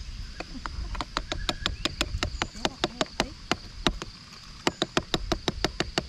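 Ground coffee being knocked out of a hand coffee grinder's catch cup into a moka pot's filter basket: rapid light metal taps in two runs with a short pause between them.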